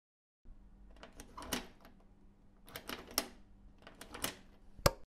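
Logo sound effect: three short clusters of mechanical clicks and rattles about a second apart, then a single sharp click near the end, the loudest of all.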